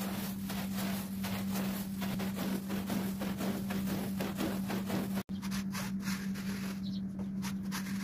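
A stiff push brush scrubbing a soaked rug, swishing back and forth in quick repeated strokes, about three to four a second, over a steady low hum. The sound cuts out for an instant about five seconds in, and wet scraping strokes follow as a squeegee is drawn over the pile.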